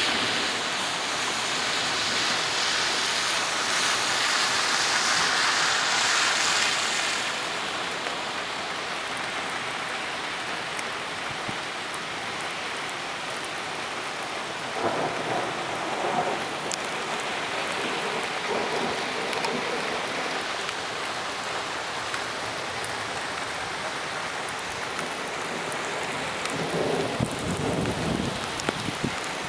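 Rain pouring down steadily, harder for the first several seconds. Two brief low rumbles come through it, about halfway through and near the end.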